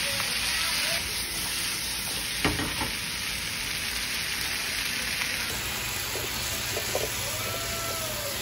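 Chopped carrots, onions, tomatoes and whole habanero peppers sizzling in hot oil in a frying pan, a steady frying hiss. There is a sharp knock about two and a half seconds in, and a few light clicks near the end.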